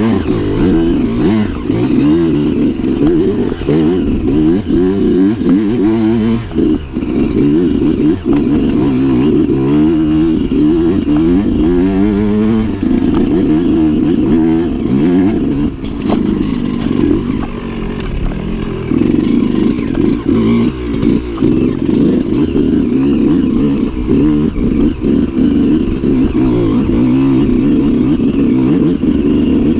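Enduro dirt bike engine revving up and down continuously while ridden over rough ground, its pitch rising and falling every second or two, steadier for a stretch past the middle.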